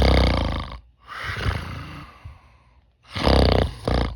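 Deliberate snoring while wearing a chin strap: two loud, rattling snores about three seconds apart, with a softer breath between them. The chin strap does little to stop the snoring.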